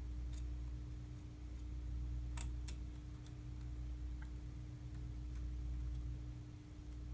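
A few light, scattered clicks and ticks of small carburetor parts being handled and fitted back together, the two sharpest close together about two and a half seconds in, over a steady low hum.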